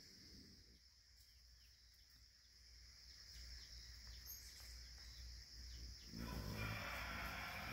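Quiet rural outdoor ambience: a steady high hiss with a few faint bird chirps. About six seconds in, a louder rushing noise comes in.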